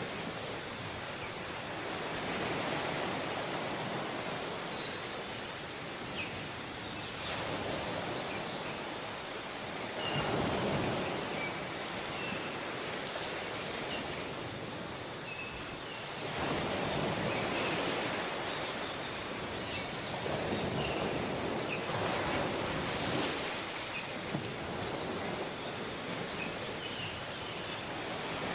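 Waves breaking and washing up on a tropical beach, the surf swelling and easing every few seconds, with faint short chirps scattered through.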